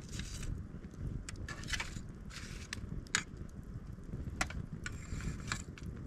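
Wood fire crackling, with irregular snaps and two sharper pops about three and four and a half seconds in, over a low steady rumble.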